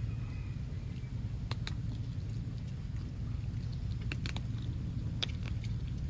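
Small dog eating dry kibble from a ceramic bowl: a few sharp, scattered crunches and clicks of kibble against the bowl, over a steady low hum.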